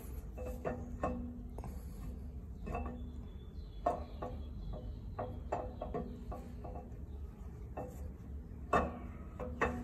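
Cummins 6BT camshaft being worked by hand out of the engine block, its lobes and journals knocking and clinking irregularly against the cam bores, over a steady low hum.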